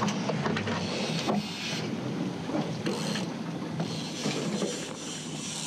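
A boat's engine running steadily with a constant low hum, under wind and water noise.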